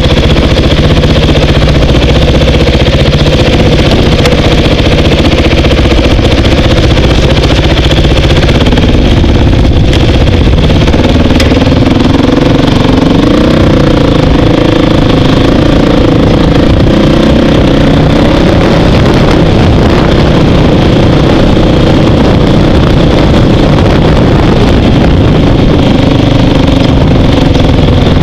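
Dirt bike engine running loud and close, its pitch rising and falling with the throttle as the bike picks its way along a rough trail, over a heavy low rumble.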